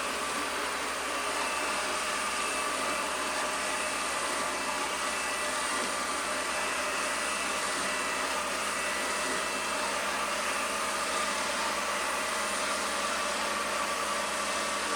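Ecovacs Deebot Ozmo 950 robot vacuum running steadily: an even whir of its suction fan with a few high, steady whining tones.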